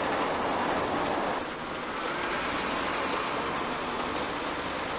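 Steady road and engine noise inside a moving motorhome's cab, dipping slightly about a second and a half in.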